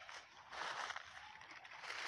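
Footsteps through grass and dry fallen leaves, a few crunching, rustling steps.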